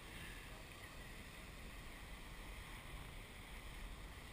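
Steady low roar of heavy surf breaking, with wind rumbling on the microphone.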